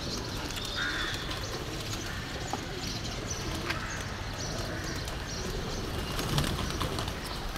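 A large flock of feral pigeons feeding on the ground, cooing, with scattered wing flaps as birds lift off and land.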